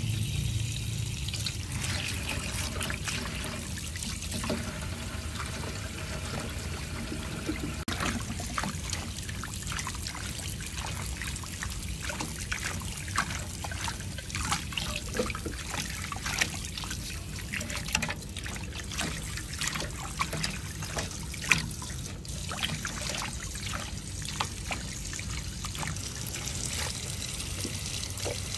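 Tap water running steadily into a basin of leafy greens while hands rub and swish the leaves in the water, with many short splashes through the middle of the stretch.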